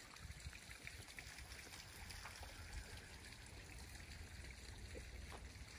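Faint, steady trickle of water from a mountain spring running over rock.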